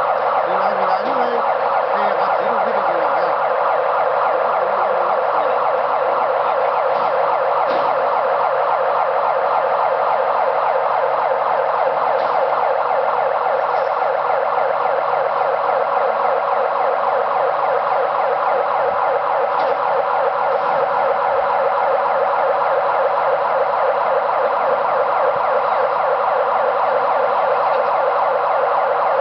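Overhead crane's electronic warning siren sounding continuously, a steady, fast warbling tone that marks the crane as operating with a load on the hook.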